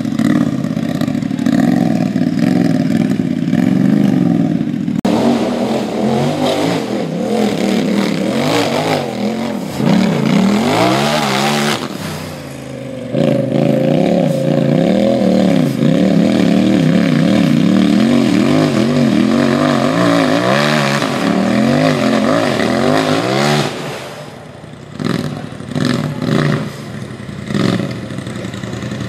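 Racing UTV engine revving hard on a rock course, its pitch swinging up and down over and over as the throttle is worked. The sound changes abruptly about five and thirteen seconds in. Near the end it breaks into shorter, choppier bursts.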